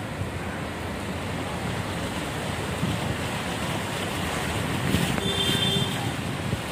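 Steady rush of wind buffeting the microphone and heavy rain, with the car's tyres running through floodwater. A brief high tone about five seconds in.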